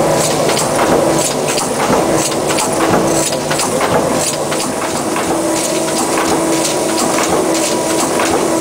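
Warco SC1-200 200-ton straight-side single-crank mechanical press running under power: a steady hum with a continuous, irregular clatter of clicks and knocks.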